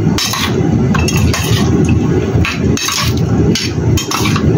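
Metal spoon stirring marinated pork ribs in a stainless steel bowl: repeated clinks and scrapes of metal on metal, several a second, over a steady low hum.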